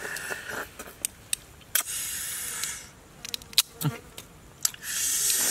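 Insects buzzing in on-off stretches, with a few sharp snaps as the shell of a cooked crab is cracked and pulled apart by hand.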